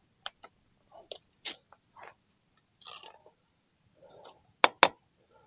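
A non-metal hammer tapping the tabs of a Royal Enfield 650's aluminium clutch cover to break it loose from its gasket: scattered light clicks and knocks, then two sharp blows in quick succession about four and a half seconds in.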